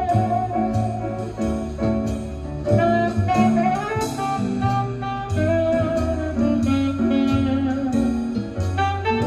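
Recorded music playing through a pair of Tannoy GRF corner loudspeakers in a room: a sustained, gliding melody line over steady bass notes.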